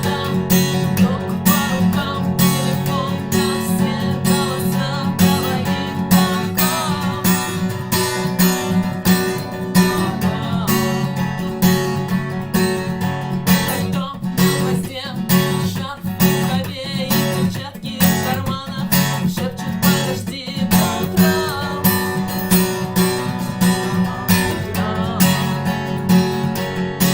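Acoustic guitar strummed in a steady rhythm with the "стук" technique: chords alternating with sharp percussive knocks, where the strumming hand slaps and mutes the strings.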